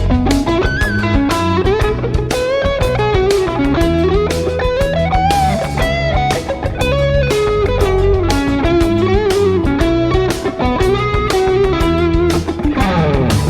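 Knockoff Fender-style electric guitar playing a lead melody with bent, wavering notes over a backing track of drums and bass.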